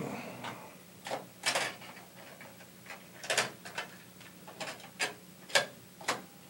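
About eight sharp, faint clicks at irregular intervals over a low steady hum.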